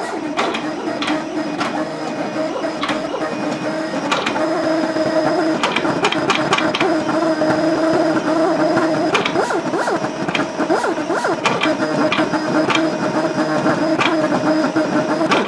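CT630 vinyl cutter plotting on butcher paper: its carriage and paper-feed motors whine in steady tones that shift in pitch as the head changes direction, with frequent irregular clicks from the mechanism.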